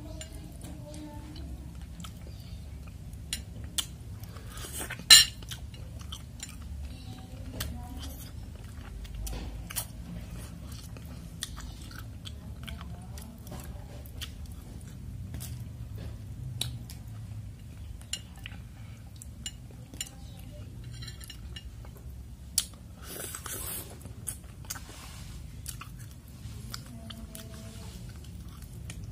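A person chewing and biting bakso urat, tendon meatballs with bone and noodles, close to the microphone, with many small wet mouth clicks and an occasional clink of cutlery on the bowl. One sharp click about five seconds in stands out as the loudest.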